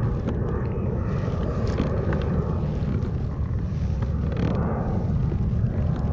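Steady wind rumble on the microphone of a kayak-mounted camera, with water washing against the plastic kayak hull and a few light knocks.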